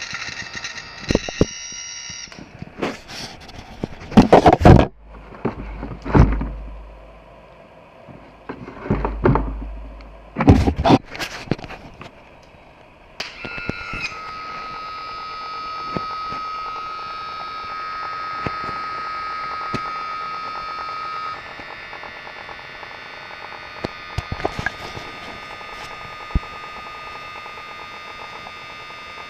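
Electric pump motor of an OMC Evinrude/Johnson two-wire power trim and tilt unit running on the bench, driving the ram: a steady whine that cuts out after about two seconds and comes back about thirteen seconds in, with loud irregular rough bursts in between. The owner hears a gurgle in it, similar to cavitation, which he takes for either a worn-out motor or a pump low on fluid.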